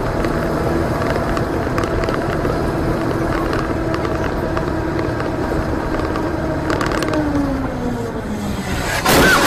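Vehicle engine running steadily at road speed, heard inside the cab, its pitch falling over the last couple of seconds as it slows. Near the end a sudden loud burst of noise cuts in.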